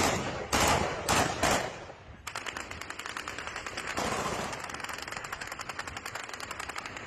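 Small-arms gunfire in a street clash: four loud single shots in the first second and a half, then, from about two seconds in, a long stretch of rapid automatic fire.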